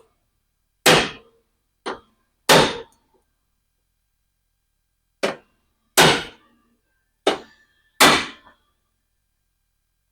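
Hammer striking a hand impact driver, seven sharp blows with short ringing tails and pauses between, to break loose a stuck Phillips screw on a car door latch.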